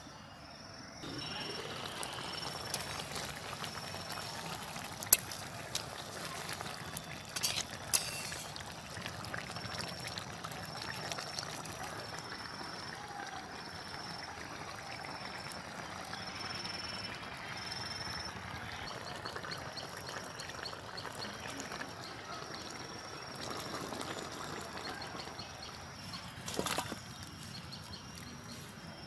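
Thick fish curry sloshing and pouring as it is ladled from a wok into a steel bowl, with a few sharp metal clinks.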